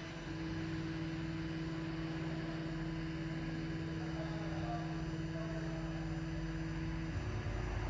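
A machine running with a steady hum of two constant tones, a low one and another about an octave above. Just after seven seconds the hum changes and a deeper rumble takes over.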